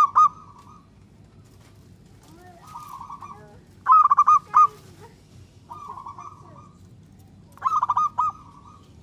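Zebra dove cooing. It gives a loud, rapid stuttering phrase about every four seconds, once at the start, once in the middle and once near the end, with softer cooing phrases in between.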